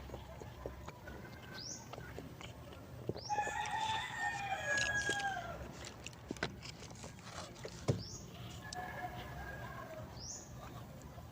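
A rooster crowing: one long crow with a falling end, then a second, fainter crow a few seconds later, with short high chirps in between.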